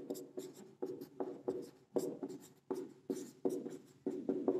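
Marker pen writing on a whiteboard: a run of short squeaking strokes, about three a second.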